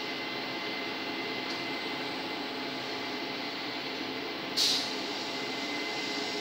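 Steady hum and hiss of background machinery, with a few faint steady tones, and one short hiss about four and a half seconds in.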